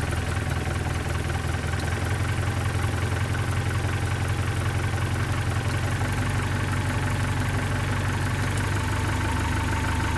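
1972 Datsun 510's L20B inline-four engine idling steadily while its carburetor idle screw is turned up, with the idle speed climbing from about 570 toward 750 rpm.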